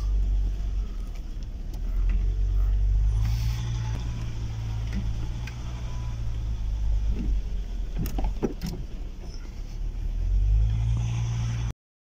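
Car running at low speed on a rough dirt track, heard from inside the cabin: a steady low rumble of engine and tyres, with a few brief knocks and rattles about eight seconds in. The sound cuts off abruptly just before the end.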